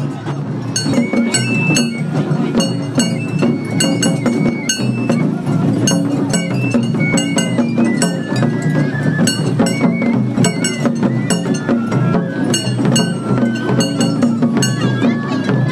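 Japanese festival ohayashi music: a high flute melody moving in steps over quick, steady metallic gong strikes and drumming.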